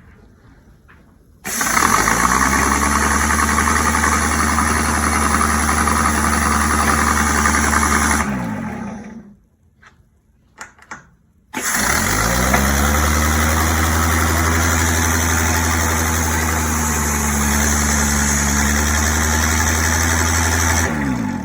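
Homemade mini skid steer's drive turning its #50 roller chains on a test run: it spins up about a second and a half in, runs steadily for about seven seconds and winds down, then spins up again and runs for about nine seconds before winding down near the end.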